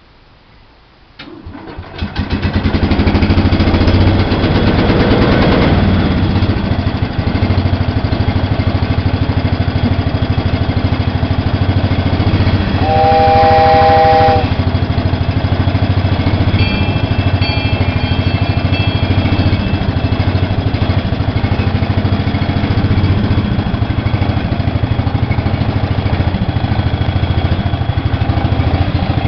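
Cub Cadet lawn tractor engine cranks and starts about a second and a half in, then runs steadily. A horn sounds once for just over a second about halfway through.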